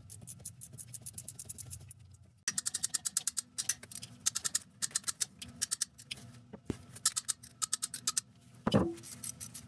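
Ratchet wrench clicking in quick runs of about seven or eight clicks a second, with short pauses, as exhaust manifold bolts are worked loose. There is a knock about two-thirds of the way in and a ringing metal clink near the end.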